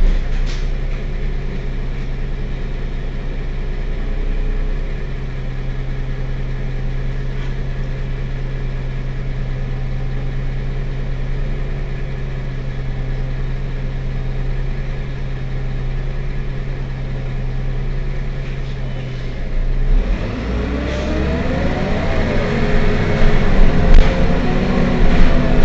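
Heuliez Access'Bus GX 127 city bus engine idling steadily. About twenty seconds in, the engine gets louder and its note rises as the bus pulls away under acceleration.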